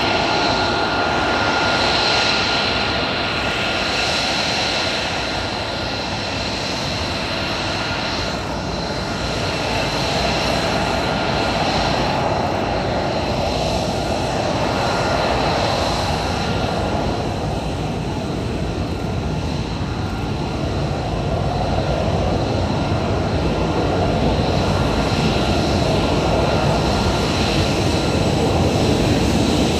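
USAF F-35A Lightning II's Pratt & Whitney F135 turbofan running at taxi power as the jet rolls past close by: a loud, steady rush with a high whine on top, growing a little louder near the end.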